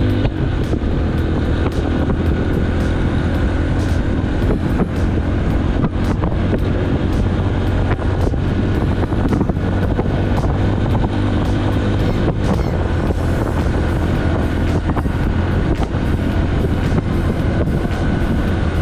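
A vehicle engine running steadily at a constant speed, a low, even drone with scattered clicks and knocks.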